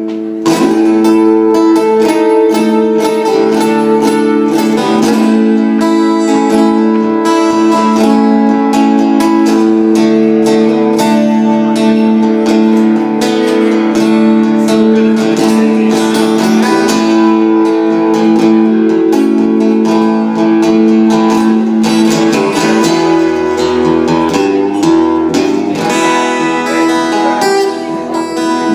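Acoustic guitar played solo, a blues passage of plucked notes and chords ringing together.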